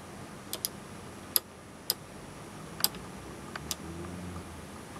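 Sharp, irregular clicks from the rotary adjust knob of an Array 3710A DC electronic load being turned by hand, about seven clicks in a few seconds, as the load's current is cranked up.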